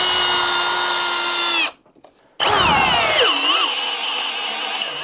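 Two cordless drills in turn driving a large 3/8-by-8-inch SPAX screw into stacked lumber. First the Ridgid High Torque Hammer Drill runs with a steady motor whine that stops abruptly. After a brief gap the Milwaukee Gen 4 hammer drill starts, its whine dropping sharply in pitch over about a second as the screw takes the load, then running on steadily and gradually fading.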